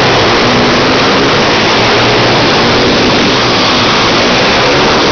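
Several pit bike engines running and revving together as the bikes circle the track, a loud, dense, steady wash of engine noise.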